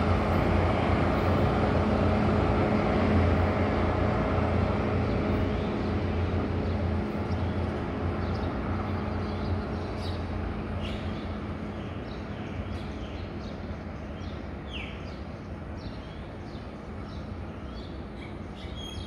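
THN-class diesel multiple unit pulling away, its diesel engines and running gear giving a steady low drone that fades steadily as the train recedes. Birds chirp briefly several times in the second half.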